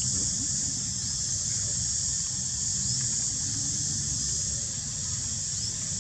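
Steady high-pitched insect chorus outdoors, with a low steady rumble underneath and a few faint short chirps.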